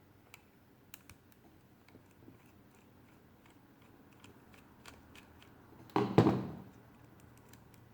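Hand work with a screwdriver on a small transistor radio: faint, irregular clicks of the screwdriver and plastic case, then one louder knock and rattle about six seconds in as the part is handled.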